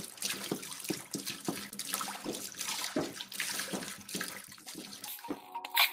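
Water splashing and running in irregular surges, with a faint steady hum underneath.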